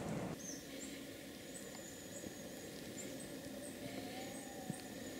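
Faint, very high, thin chirps of small forest birds, repeating every half second or so over a quiet background.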